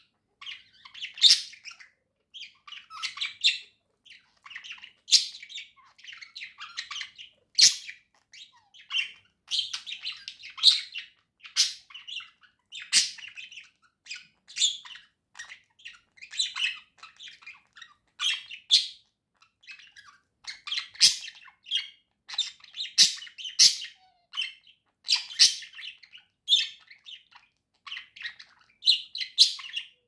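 Pet budgerigar warbling: an irregular running chatter of chirps and squeaks with short pauses, and sharp clicks mixed in.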